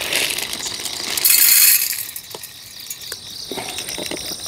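Dry cat food rattling and pouring out of a plastic jar, loudest just over a second in, followed by a few light clicks. Crickets chirp steadily in the background.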